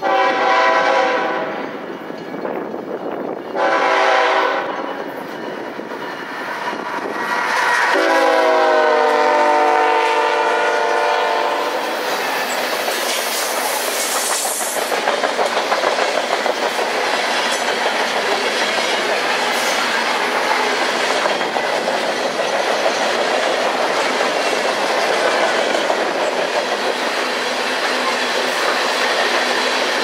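A diesel freight locomotive's horn sounds three blasts as it approaches, the last one the longest, dropping in pitch as the locomotive passes. Then the freight cars roll by close, a steady rumble of steel wheels with clickety-clack on the rail joints.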